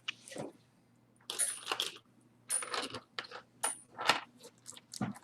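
Costume jewelry clinking and rustling as pieces are handled and taken out of the box: several short clatters with brief bright metallic rings.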